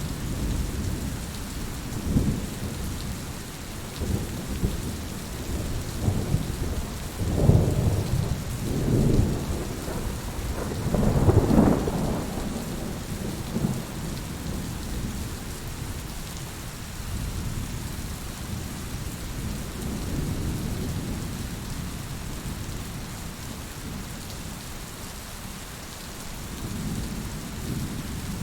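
Steady rain with rolling thunder: low rumbles swell several times in the first half, the loudest a little before the middle, then the rain carries on evenly.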